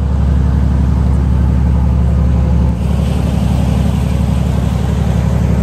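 A tuna charter boat's engine running steadily: a loud, deep, even hum with a noisy hiss above it.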